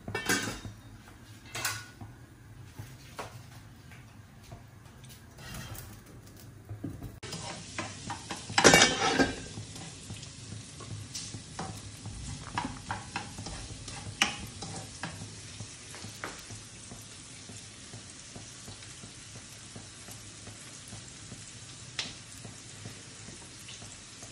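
Soup bubbling in a stainless steel pot while a spoon stirs it and taps against the pot, with scattered clinks of metal and one loud clatter about nine seconds in.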